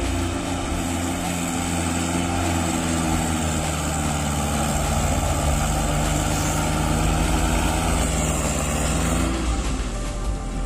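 Farm tractor's diesel engine running steadily as the tractor drives slowly close by over a rough stone track; the engine note shifts about nine seconds in.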